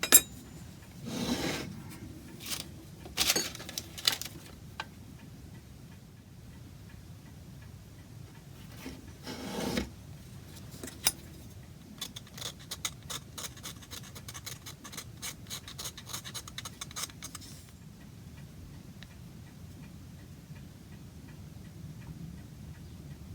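Hand tool working small wooden blocks: a sharp knock, a few single scrapes, then about six seconds of quick rasping strokes that stop suddenly.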